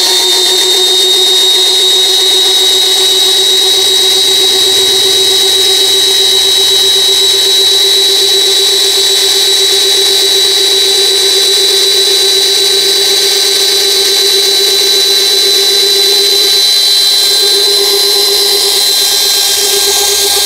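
Kingblue 13 mm cordless drill boring a large wood auger bit into a log under heavy load: a loud, steady motor whine held at one even pitch throughout.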